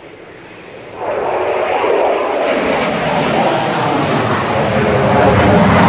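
Aircraft flying low overhead: a rushing engine noise that swells sharply about a second in and keeps growing louder.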